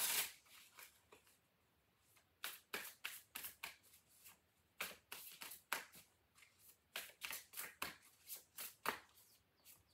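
Deck of oracle cards shuffled by hand: faint runs of quick card flicks and slaps, starting about two and a half seconds in and coming in four short spells.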